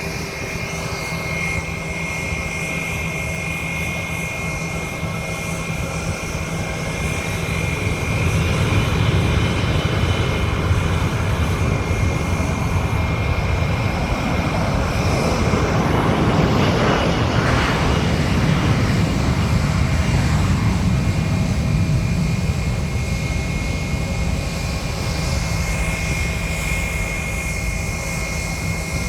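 Airplane taking off: engine noise builds about a third of the way in, is loudest as it passes near the middle, then slowly fades. A steady high whine runs under it.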